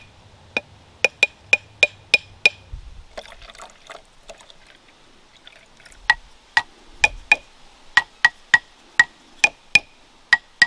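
Two homemade wooden marimba bars, hollowed thinner in the middle and set over cut plastic-bottle resonators, tapped with short pitched knocks. First one bar is struck about eight times in quick succession. After a short pause with some handling noise, the higher bar and the lower bar are struck in turn, about sixteen knocks in all.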